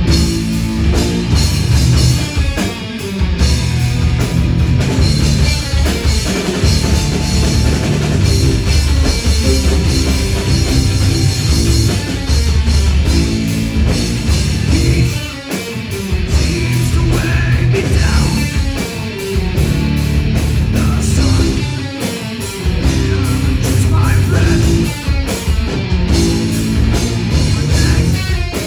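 Live rock band playing loud electric guitars over bass guitar and a drum kit, with two short breaks in the playing partway through.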